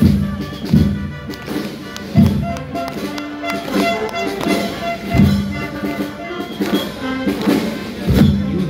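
Marching band playing a march live: a brass melody over snare drum, with heavy bass-drum beats landing every one to three seconds.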